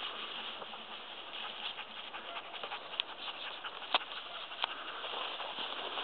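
A wolfdog and a dog running through tall grass: steady rustling of the grass and patter of paws, with three sharp clicks between about three and five seconds in.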